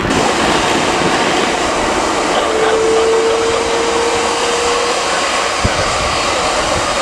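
Heavy rain and wind hitting an umbrella held over the microphone, mixed with the steady sound of an Airbus A330's jet engines on the wet runway. A steady tone sounds for a couple of seconds midway, and there is a single knock near the end.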